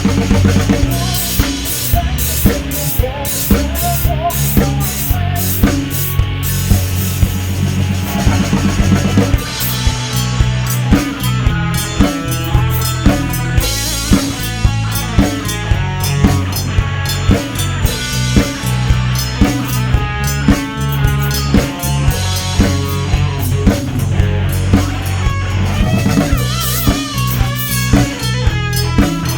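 A rock band plays an instrumental passage with no vocals. A drum kit keeps a steady beat on bass drum and snare over a heavy bass line, and a melody line enters about ten seconds in, with bending notes near the end.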